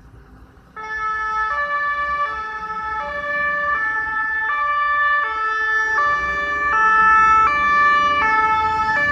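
Two-tone siren of an Iveco Magirus aerial ladder fire truck, switching on suddenly about a second in. It alternates between a high and a low note about every three quarters of a second, over the truck's engine.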